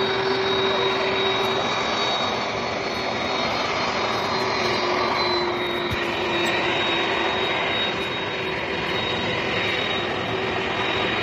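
Airbus Beluga XL's Rolls-Royce Trent 700 turbofans running steadily at low taxi power: a continuous jet rush with a thin, steady high whine.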